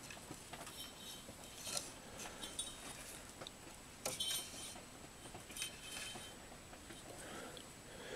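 Faint, scattered light clicks and scratches of a thin dial cord being pulled by hand through a pulley on the metal chassis of a Hallicrafters S-38D receiver.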